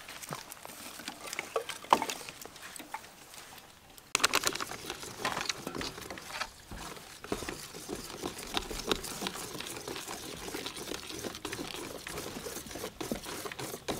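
Sticks clicking and knocking as they are laid on a small wood fire. From about four seconds in, hands squeeze and pat a wet lump of dough through dry flour in a stainless steel tray, making soft, irregular patting and rustling.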